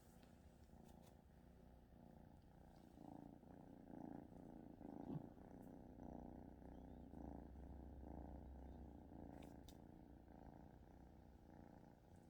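Domestic cat purring, a soft, steady purr with a brief knock about five seconds in.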